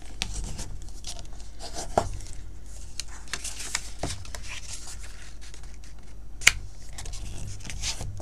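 White cardstock being folded and its crease pressed down with a bone folder: paper rustling and the folder scraping along the fold, with a sharp tap about two seconds in and a louder one about six and a half seconds in.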